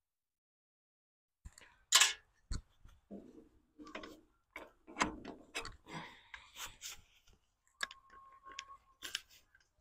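Metal clicks, clanks and scrapes of a socket wrench and steel links as the three-point hitch linkage of a Ford 8N tractor is disconnected by hand, with one sharp metallic clank about two seconds in and a brief steady squeak near the end.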